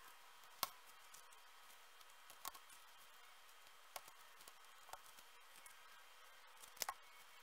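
Dry corn husks crackling and clicking faintly as they are handled and pinned onto a foam cone, a few scattered sharp crinkles over quiet room tone. The sharpest comes about half a second in, and a double one comes near the end.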